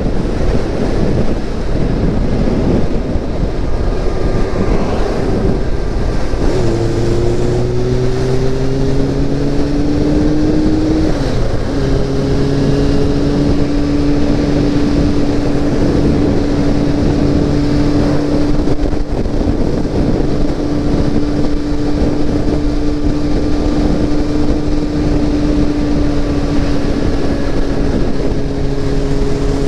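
Motorcycle engine under way with heavy wind noise on the microphone. Its note climbs for a few seconds, drops about eleven seconds in as it shifts up a gear, then holds steady at cruising speed.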